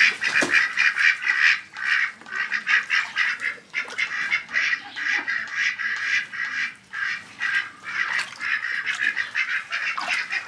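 A group of white domestic ducks quacking continuously, several short calls a second, overlapping one another.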